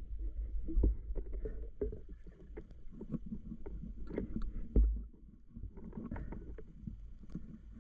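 Water sloshing and rumbling as a spearfisher swims, with scattered clicks and knocks and one heavy thump about five seconds in.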